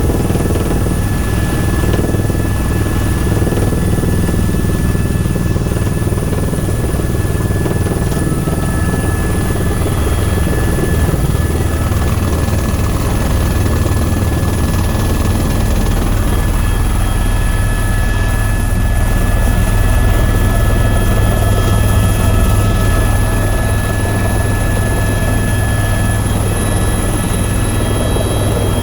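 Tour helicopter running, with steady rotor and engine noise: a constant low rumble with thin steady high-pitched tones over it.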